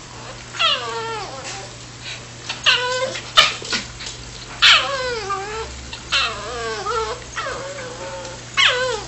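Cavachon puppy whining in excitement: about six drawn-out, high cries, each sliding down in pitch, with short clicks between them.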